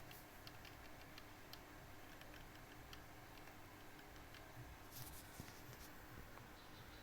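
Faint, scattered keystrokes on a Dactyl Manuform 5x6 split keyboard with Gateron Black linear switches, with a quick flurry of keys about five seconds in.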